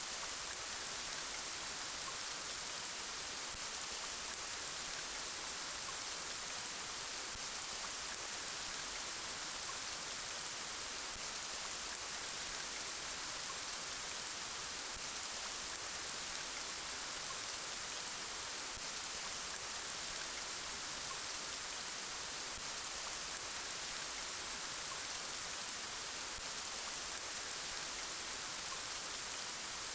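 Steady rain falling, an even hiss that holds the same level throughout, with no thunder or separate drops standing out.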